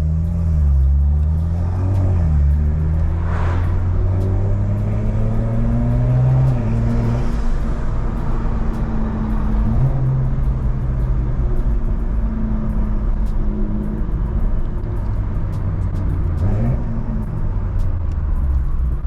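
BMW M4's S58 twin-turbo straight-six running through a stainless Valvetronic full exhaust while driving at low RPM, a deep, mellow note whose pitch rises and falls gently with the throttle. About sixteen seconds in there is a brief rise and drop in revs.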